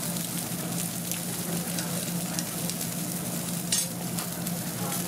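Whole fish sizzling on a grate over a charcoal fire, a steady hiss with scattered crackles and one sharper crackle near the end. A steady low hum runs underneath.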